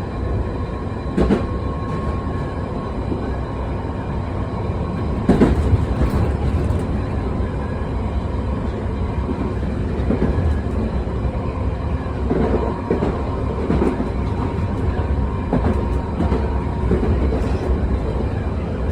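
London Underground 1973 Tube Stock train running, with a steady low rumble and a thin steady whine. Sharp wheel knocks come every few seconds.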